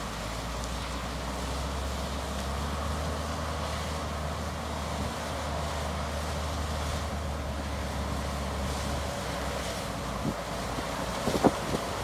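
Diesel engines of a John Deere 4640 tractor and a John Deere 9600 combine harvesting corn, heard from a distance and running steadily, with wind noise on the microphone. A low steady drone fades out about nine seconds in. In the last second or so, sharp wind buffets on the microphone are the loudest sound.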